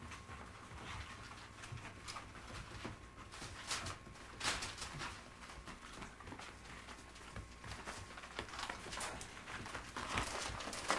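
English Springer Spaniel puppies scuffling and pattering about on tatami mats: soft paw steps and claw scratches with a few short, louder scuffs. Near the end, newspaper rustles under their paws.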